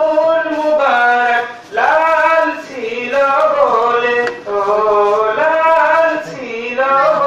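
A young man's solo voice singing an Islamic devotional song (gazal) through a microphone, in long held, ornamented phrases with brief breaths between them.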